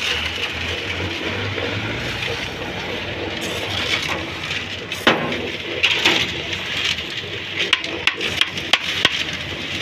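Building-site ambience: a steady low hum under a constant outdoor haze, with scattered sharp clicks and knocks about halfway through and again near the end.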